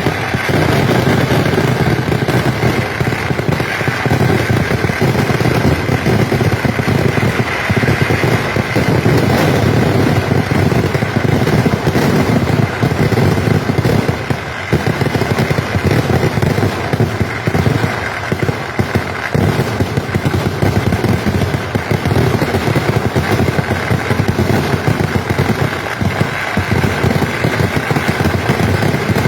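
Kerala vedikettu fireworks: a loud, unbroken barrage of explosions, so many bursts a second that they run together into one continuous rattle.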